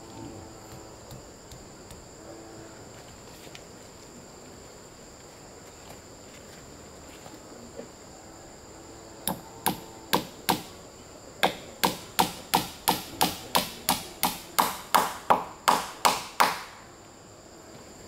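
Hammer nailing rough wooden slabs to a wooden post: about twenty sharp blows starting about halfway in, four spaced strikes and then a steady run of about three a second. A steady high insect buzz carries on underneath.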